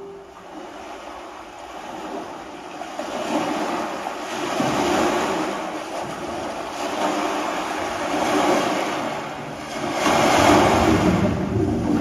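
Recorded ocean surf played as a stage sound effect through a theatre's speakers: a rushing noise of waves that swells and ebbs every few seconds, loudest near the end.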